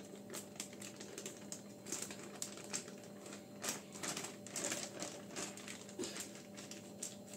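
Plastic zip-lock bag full of mango pulp crinkling and clicking as hands press it flat to push the air out, in irregular soft crackles a few times a second.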